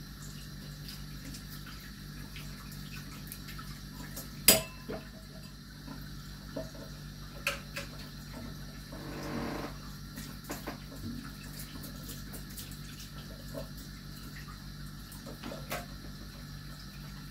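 Dishes and cutlery clinking and knocking during kitchen washing-up, with one sharp clank about four and a half seconds in and a short rush of water near the middle, over a steady low hum.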